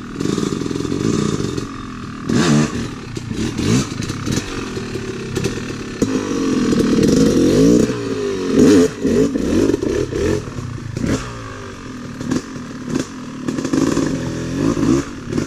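Two-stroke Yamaha YZ dirt bike engine revving up and down over and over as it rides a tight trail, loudest as the bike passes close by about halfway through. Short clattering knocks are mixed in.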